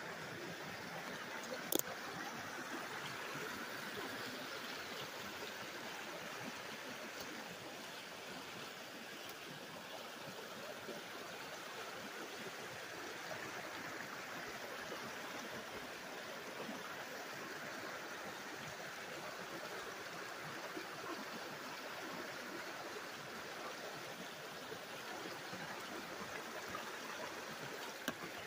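Shallow mountain creek running low over rocks: a steady rush of water. A single sharp click about two seconds in.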